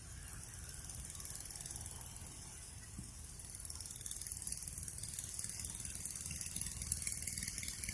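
Insect calling: a high, fast pulsing buzz that grows louder about halfway through.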